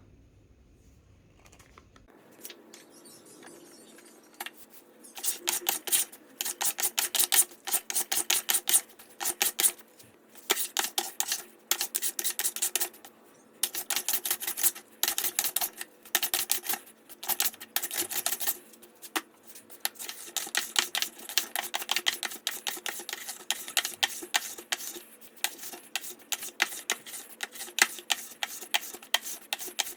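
Rapid sharp clicking in bursts of about a second, with short gaps between, over a faint steady hum.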